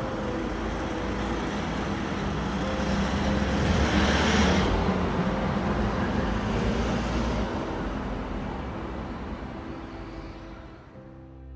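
Combine harvester driving past, its engine and machinery noise swelling to a peak about four seconds in and then fading away, over faint background music.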